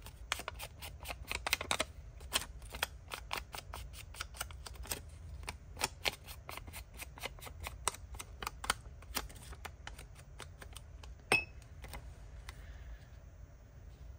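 Foam-topped ink blending tool being tapped and dabbed against the edges of a die-cut paper sticker to ink them: a run of quick, irregular taps, a few a second, with one louder knock near the end before the tapping stops.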